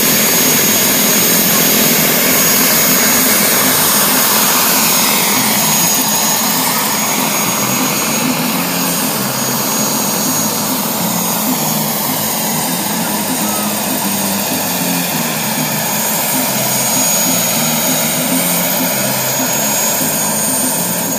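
Radio-controlled scale model helicopter flying, a steady high whine over a low pulsing rotor chop, its pitch dipping and rising again twice as it moves around.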